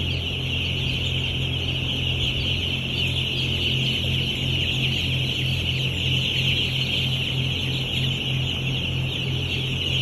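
A large flock of three-day-old broiler chicks peeping without pause, a dense chatter of many overlapping high cheeps, over a steady low hum.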